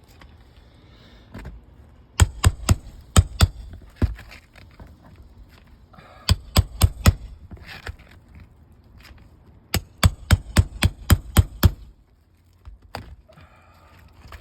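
A roof snake nail-removal tool is struck over and over as it is worked under asphalt shingles to pull their nails. There are three quick runs of sharp blows, roughly four a second, the last and longest about ten seconds in.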